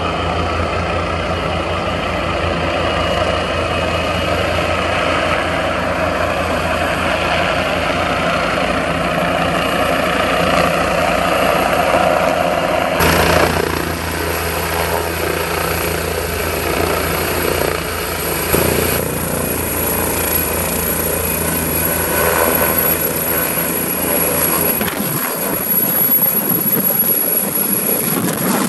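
AgustaWestland AW169 twin-turbine helicopter hovering close to the ground, with a steady low rotor beat under a turbine whine. The sound changes abruptly about halfway through and again a few times near the end.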